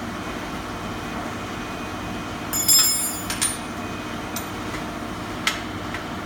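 Steady machine hum with a constant low drone, broken by a few sharp metallic clinks with a bright ringing edge, the loudest cluster about two and a half seconds in.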